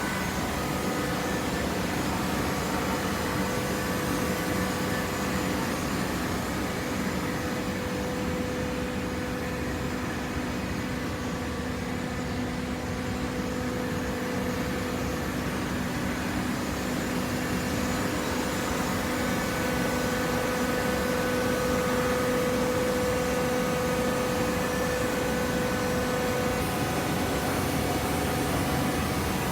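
Hydraulic baler's power unit (electric motor and pump) running with a steady hum, growing a little louder about two-thirds of the way through.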